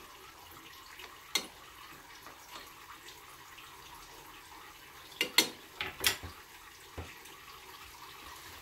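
Several sharp clinks and knocks of kitchen utensils and cookware, the loudest cluster about five to six seconds in, over a steady faint hiss.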